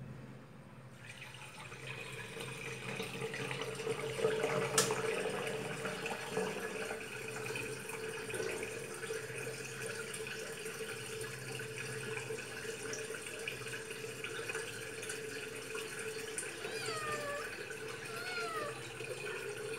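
Water trickling steadily from a wall tap, with a sharp click about five seconds in. Near the end come a few short, high squeaks that fall in pitch.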